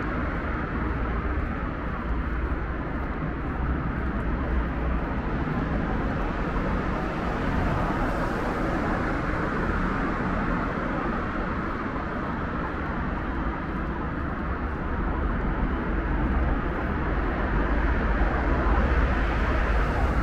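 Steady rumble of road traffic: an even, low roar with no single vehicle standing out.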